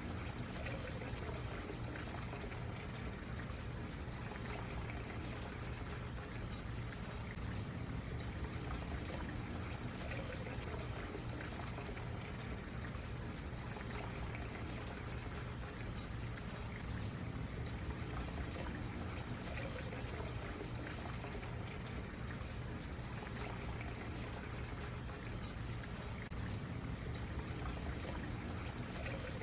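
A small stream flowing steadily.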